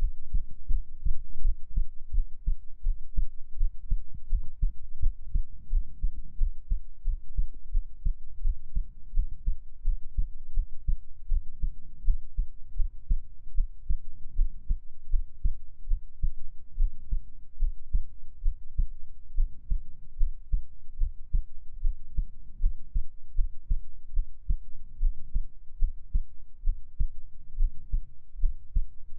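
A human heartbeat heard close up, beating steadily and evenly with a deep, low sound.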